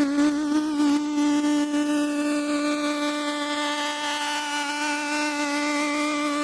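A single buzzy synthesizer lead note held steadily, running through a Rabbit Tape tape-machine emulation plugin; its pitch wavers slightly in the first second.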